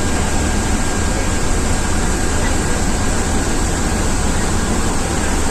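Ashok Leyland Viking diesel bus driving in heavy rain: a steady low engine drone under an even hiss of rain and wet road, with no change in speed or pitch.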